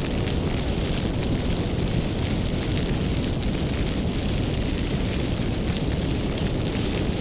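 Wood fire burning with a steady low rumble and many small crackles and pops throughout.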